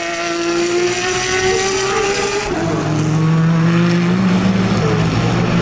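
Race cars passing at speed: a high engine note falling slightly in pitch as one car goes by, then a deeper engine note from a second car taking over about halfway through and rising slightly.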